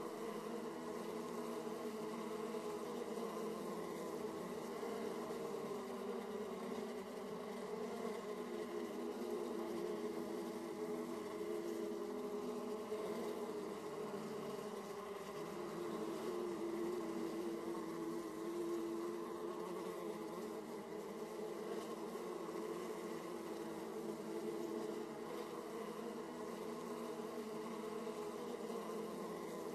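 Honeybees at their hive entrances: the steady hum of many bees, several pitches wavering and overlapping.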